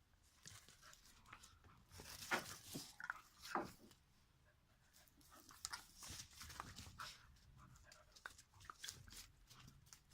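A pitbull puppy and a hunting dog playing: faint scuffling and light knocks from their movement. The loudest sounds come between two and four seconds in.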